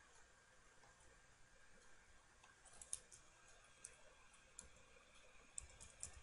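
Faint, scattered clicks of computer keyboard keys being typed, a few single keystrokes spread over the second half.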